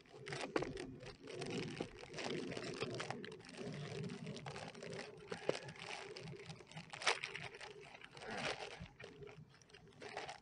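A small cardboard box being opened by hand: irregular scrapes, clicks and rustles of the flaps and tab, then plastic packaging crinkling near the end as the contents are pulled out.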